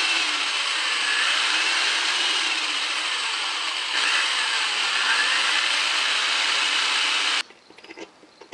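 Power drill spinning a motorcycle speedometer's drive through a square-drive bit, its speed rising and falling, to work freshly applied lube into a mechanism that had been stuck. The sound cuts off abruptly near the end.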